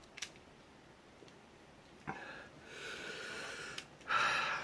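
A small click, then a person breathing out heavily three times, the last breath the loudest.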